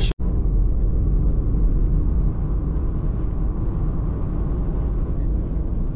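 Steady low rumble of road and engine noise inside a moving car cruising on a highway. The sound drops out for an instant just after the start.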